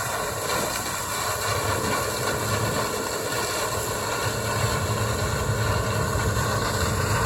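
Combine harvester running steadily while harvesting corn, a constant machine hum with several fixed whining tones over it.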